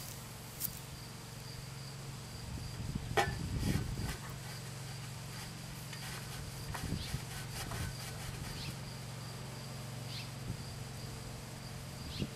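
Insects trilling steadily in the grass, one thin high tone over a steady low hum. A sharp click about three seconds in is followed by a brief low rumble, with a few fainter clicks later.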